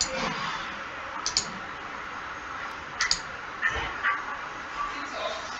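A few scattered clicks of a computer mouse, in ones and pairs, over a steady low hiss of microphone room noise.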